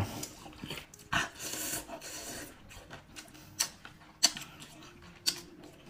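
A person eating with wet chewing and mouth sounds, with a drawn-out sucking hiss a little over a second in and a few sharp smacks later.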